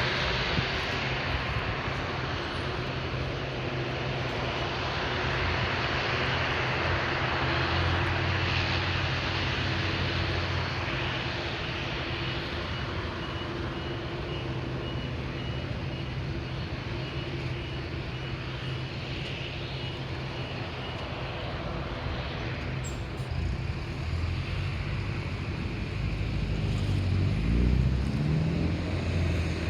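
Jet engines of a Boeing 747-400 running steadily, a broad even rush of noise over a low, steady hum, growing slightly louder near the end.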